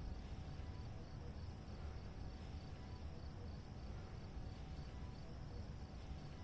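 Faint crickets chirping: a steady run of high, evenly spaced chirps over a low hum.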